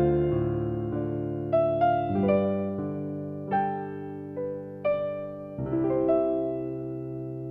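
Slow solo piano music: single melody notes struck one at a time and left to ring, over held low chords that change twice.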